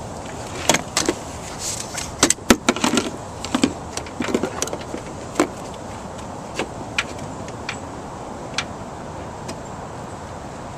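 Irregular metallic clicks and clinks, thick in the first half and then sparse: hand tools and a new battery ground cable being handled and fitted.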